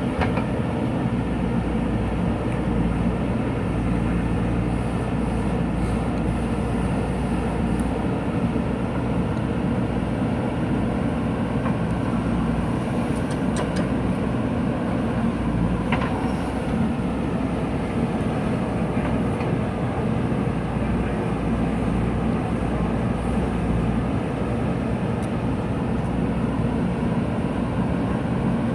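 JCB 3DX backhoe loader's diesel engine running steadily under digging load, its low drone rising and easing slightly, with a couple of faint clicks near the middle.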